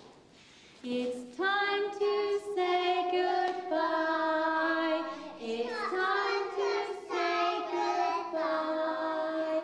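Young children singing a slow tune in held notes, beginning about a second in.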